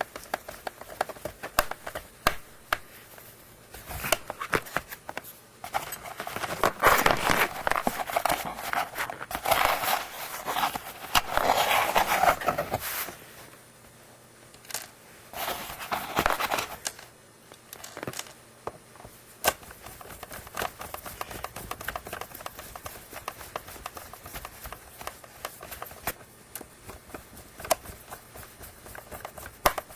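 Hands working on a plastic oral irrigator during disassembly: scattered sharp clicks and taps of plastic parts, with a few seconds of scraping and rustling about a third of the way in and a shorter spell a little past the middle.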